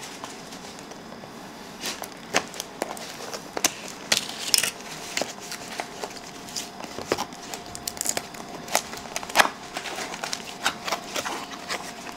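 A small cardboard lens box being opened by hand, with irregular clicks, taps and crinkles as the flaps are worked loose and the plastic packing is touched. The sharpest snap comes about nine and a half seconds in.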